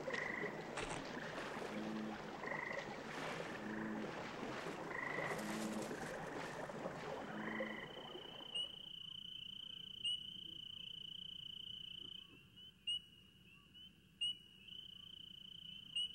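Night ambience of frogs croaking, one call about every second over a dense chorus. About halfway through, the croaking falls away to a single insect's steady high trill, broken by a few faint clicks.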